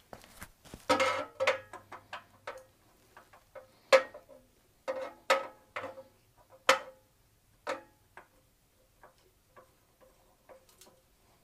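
Irregular sharp metal clicks and clinks, some with a brief ring, as a compression gauge fitting is screwed by hand into the spark plug hole of a Kohler K321 engine. The loudest clicks come about 4 and 7 seconds in, and the clicks grow fainter and sparser near the end.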